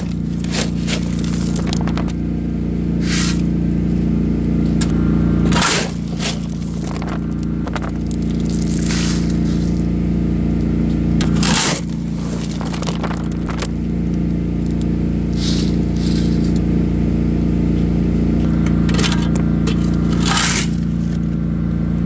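A steel shovel scraping across a steel trailer bed and scooping crushed-stone ballast, about eight scrapes a few seconds apart. Under them a small lawn-tractor engine runs steadily.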